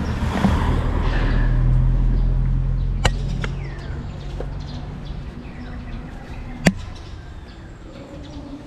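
A vehicle's low engine hum swells and then slowly fades as it passes. There is a light tap about three seconds in and a louder single knock near seven seconds, and a few short chirps.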